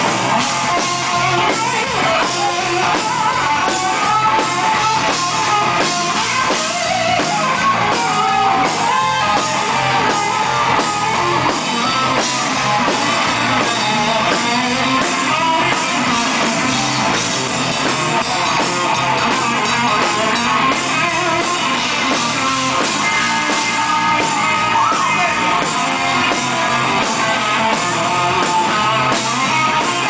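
Live rock band playing loudly: electric guitar with a drum kit behind it.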